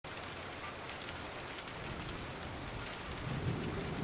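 Steady rain falling, with a low rumble of thunder building about three seconds in.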